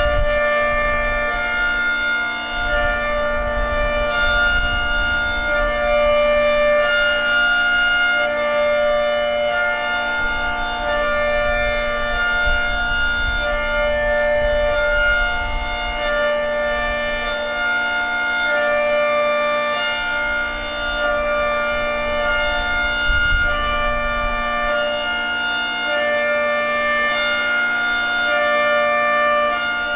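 Federal Signal 3T22A dual-tone outdoor warning siren sounding its hi-lo test signal: a higher and a lower steady tone alternating about every second.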